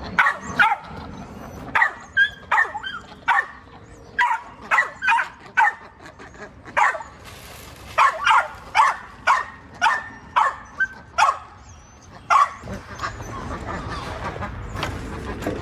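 A dog barking over and over, a long run of short barks that stops about twelve seconds in.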